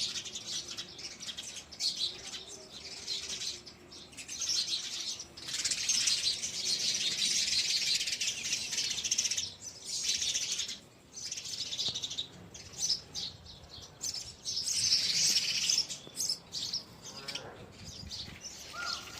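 Sparrows chirping in dense, rapid runs of a few seconds each, with short breaks between them.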